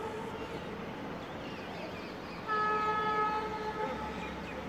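Distant train horn sounding in two blasts: one dies away just after the start, and a second steady blast of about a second and a half begins about halfway through. Under it runs a faint steady rumble of train noise.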